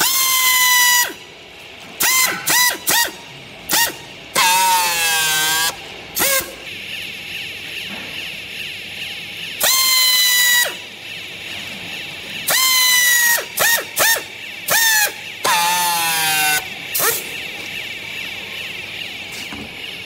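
Handheld strapping tool tensioning and sealing plastic strap around a bale, its motor whining in repeated bursts: several runs of about a second and a number of short blips. The pitch sags and wavers as the strap pulls tight.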